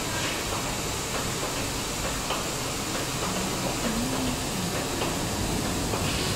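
Steady, even hiss of a running flat-bed screen printing machine and its air supply, with a few faint light taps as material is laid on the table.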